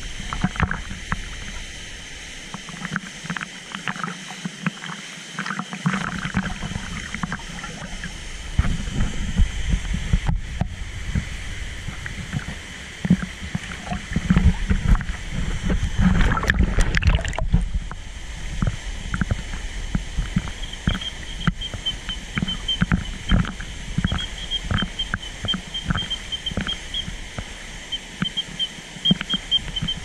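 Water sloshing and splashing irregularly against a camera held at the surface by a swimmer in a waterfall pool, over a steady low rumble of falling water.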